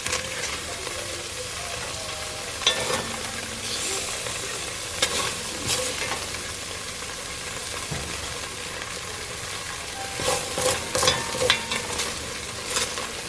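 Beef pieces sizzling in hot oil in a Dutch oven, a steady frying hiss. A utensil clicks and scrapes against the pot now and then, with a cluster of knocks about ten to twelve seconds in.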